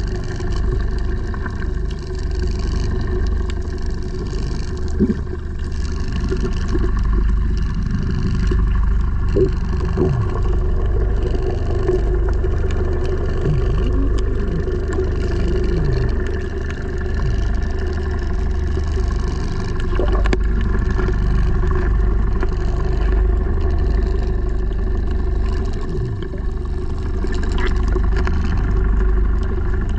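Underwater recording of a boat engine running steadily, carried through the water as a low rumble with a held hum over it. A few short falling chirps come through in the middle and again near the end.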